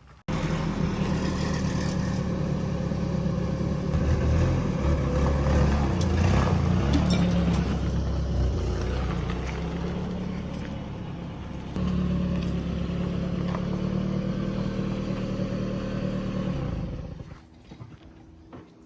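A motor or engine running steadily. It cuts in suddenly, grows louder for a few seconds in the middle, steps up again later on, and dies away shortly before the end.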